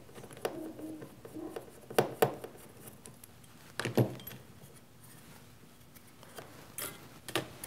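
Small parts being handled on a workbench: a handful of sharp clicks and light clatter as circuit boards, small plastic standoffs and a screwdriver are picked up and set down.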